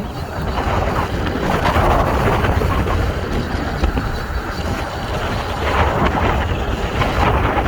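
Steady running noise of a 2014 Ford Flex AWD on the move. It carries the intermittent drivetrain noise that shows up between about 30 and 60 mph, which the owner traced to a faulty power transfer unit (PTU).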